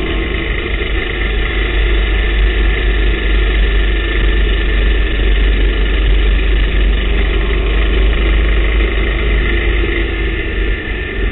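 TVR Tuscan race car's engine running hard at racing speed, heard from inside the open cockpit along with wind and road noise; loud and fairly steady throughout.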